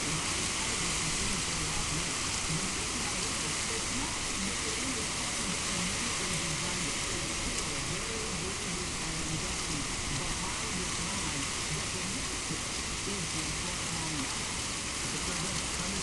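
Heavy rain and strong wind blowing steadily during a severe thunderstorm, with gusts the uploader puts at 50 mph or more.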